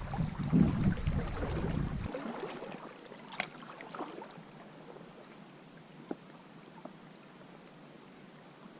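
Water sloshing and splashing for about two seconds, then the faint steady rush of a small creek with a few light clicks.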